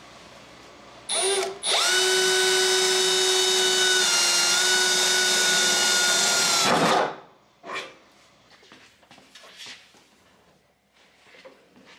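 Power drill boring a hole: a short blip about a second in, then a steady high whine for about five seconds that sags slightly midway as the bit bites, winding down near the seventh second. Faint handling clatter follows.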